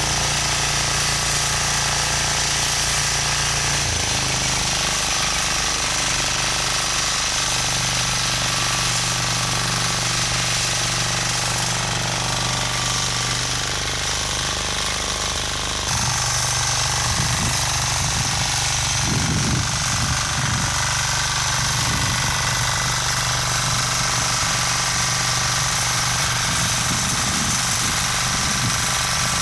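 Motocultor (walk-behind rotary tiller) engine running steadily with a rattling drone while its tines mill the soil. The engine note shifts slightly about four seconds in and changes abruptly about halfway through.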